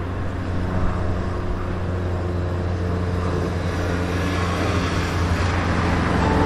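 Maruti Suzuki Swift hatchback driving along a road: a steady low engine and road hum.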